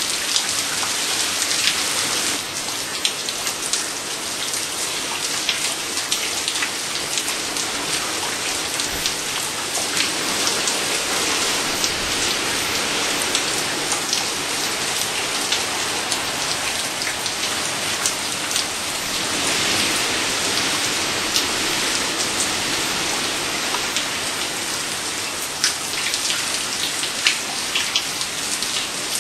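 Steady rain falling, with many sharp drops striking hard surfaces close by.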